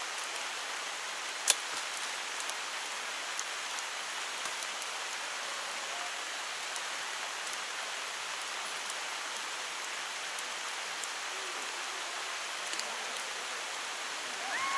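Steady rain: an even hiss with scattered small ticks of drops, and one sharper tick about a second and a half in.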